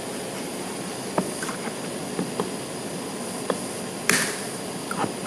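Scattered light clicks and taps of hot-stapler repair work on a plastic bumper, with a sharper snap about four seconds in, over a steady hiss.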